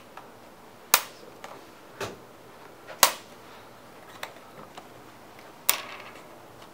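Plastic spudger prying at the aluminium bottom cover of a 13-inch MacBook Pro, which is held tight by clips, giving about five sharp snapping clicks. The loudest comes about three seconds in.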